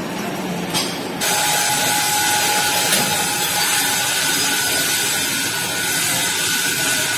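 Compressed air hissing steadily at the pneumatic valve actuator's air supply fittings, starting suddenly about a second in, with a faint whistle over the hiss.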